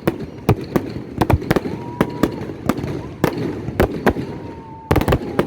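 Fireworks going off in a rapid, irregular string of sharp bangs and cracks. Twice, a whistling tone rises and holds for about a second between the bangs.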